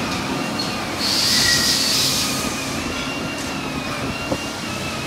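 Steady whirring of running machinery with a faint high whine. About a second in, a hiss rises over it for about a second and a half.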